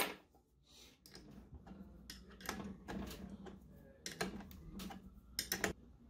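Irregular light clicks and taps as heavy winch power cables and their metal terminal lugs are handled and set down on a workbench, with a louder pair near the end. A faint steady hum runs underneath.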